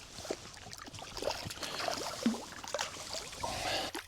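Hooked rainbow trout thrashing at the water's surface: a run of irregular splashes as it fights just before it is landed in the net.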